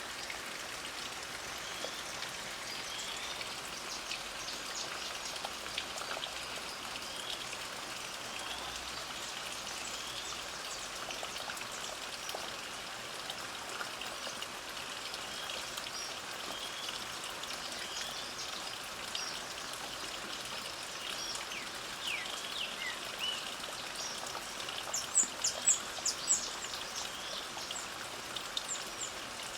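Light rain falling steadily, with birds chirping through it: a short call repeats every second or two, and a burst of louder, higher chirps comes near the end.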